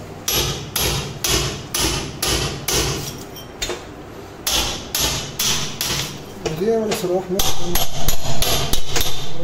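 Hammer blows struck over and over, about two a second, with a brief pause around the middle.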